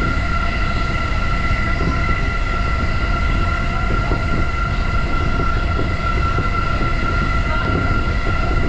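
JR Yokohama Line electric commuter train running at steady speed: a continuous low rumble from the wheels and track with a steady high whine over it.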